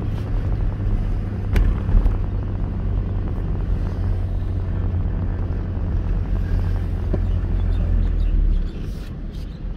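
Low, steady rumble of a car's engine and tyres heard from inside the cabin while driving, quietening near the end as the car slows. A single sharp click sounds about one and a half seconds in.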